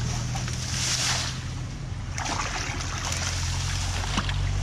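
Water sloshing and splashing in surges over a steady low rumble.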